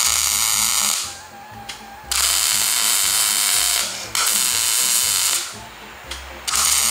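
MIG welder striking arcs to tack square steel tubing onto a steel plate: four bursts of steady arc crackle, each about one to two seconds long, with short pauses between.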